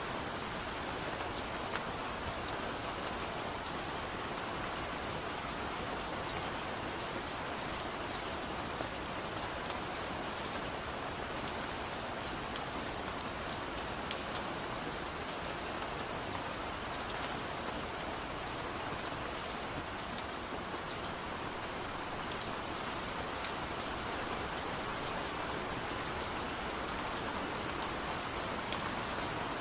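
Steady rain falling on a surface, a continuous even hiss with scattered sharp drop ticks.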